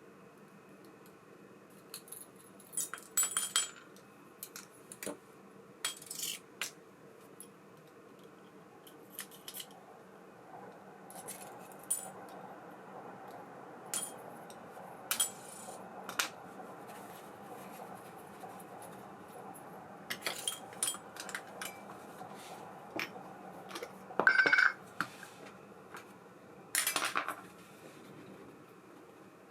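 Light metallic clicks and clinks at irregular intervals: small metal parts of an ABU Ambassadeur 5500C baitcasting reel and small tools being handled during servicing.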